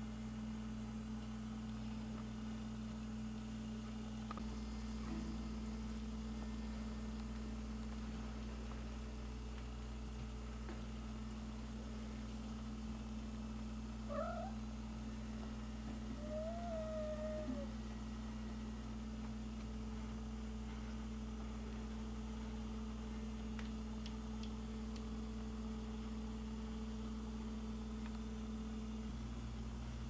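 A cat meows twice about halfway through: one short rising meow, then a longer one that rises and falls. A steady low hum runs underneath.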